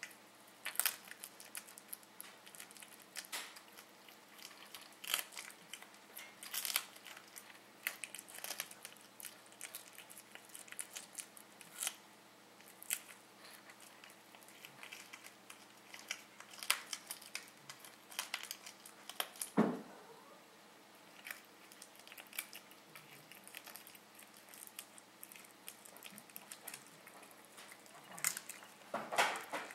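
A Siamese cat chewing and crunching through a meadow vole, with irregular sharp crunches a second or two apart, the loudest about two-thirds of the way in and a quick cluster near the end.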